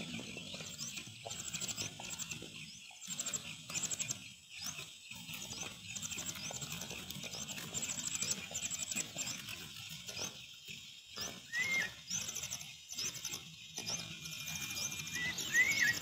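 Cuckoo chick in the nest begging for food: rapid runs of thin, high-pitched calls, repeated over and over, with a couple of short lower chirps near the end. A low rumble runs underneath.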